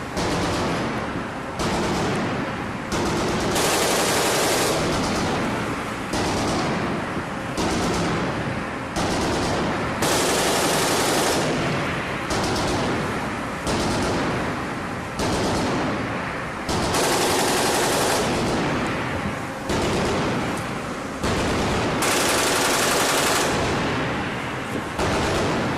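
Mk 38 mounts' M242 Bushmaster 25 mm chain guns firing in repeated bursts, a fresh burst about every second and a half, each with a ringing tail.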